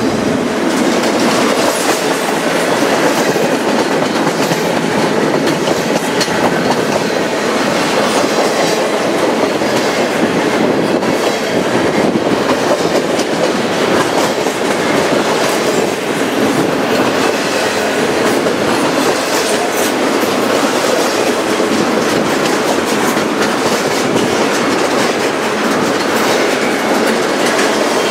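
Double-stack intermodal freight cars rolling past: steel wheels on rail make a loud, steady noise, with the repeated clickety-clack of wheels crossing rail joints.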